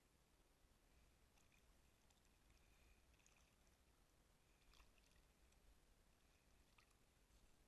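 Near silence: faint water lapping, with a few soft ticks and short faint high chirps.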